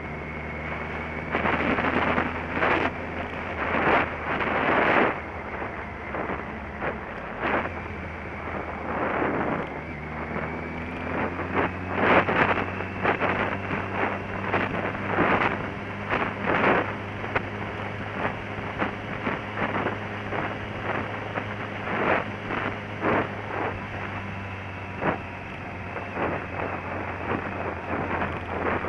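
Motorcycle riding at road speed: the engine hums steadily while wind buffets the microphone in repeated gusts. The engine note steps down about seven seconds in and climbs again a few seconds later.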